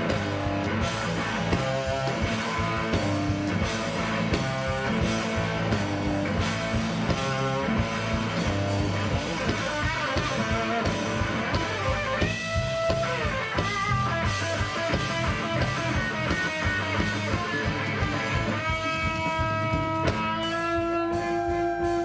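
Electric guitar solo over a drum kit in a live blues band. Through the second half the guitar holds long notes and bends them, with a wavering bend near the end.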